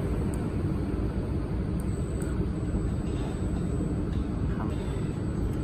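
Steady low rumble of running machinery, even throughout with no distinct events, around an automatic laser welding machine at work on a bearing and shaft.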